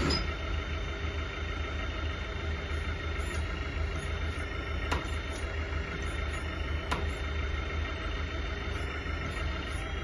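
Remote-control 636 model crawler loader running, a steady engine-like hum, while its bucket and rear ripper are worked from the transmitter. Two faint clicks about five and seven seconds in.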